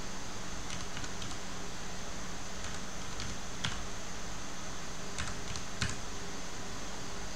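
Computer keyboard keys tapped in short clusters, about a dozen sharp clicks spread over a few seconds, over a steady background hiss.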